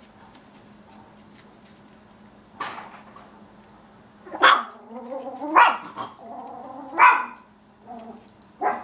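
Chihuahua barking: about five sharp barks spread over several seconds, the loudest in the middle, with a held whine between some of them.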